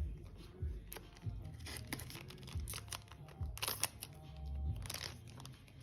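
Trading cards being handled and flipped, with short rustles and crinkles of a foil pack wrapper, over background music.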